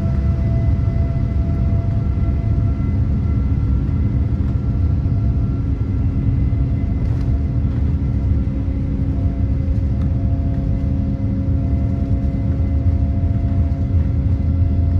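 Steady cabin noise inside a Boeing 787-9 airliner: a low engine and airflow rumble with several steady whining tones held at an even pitch.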